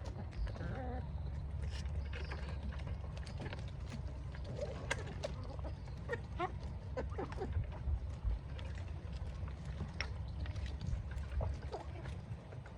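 Chickens and ducks feeding: scattered short calls and clicks, mostly in the middle stretch, over a steady low rumble.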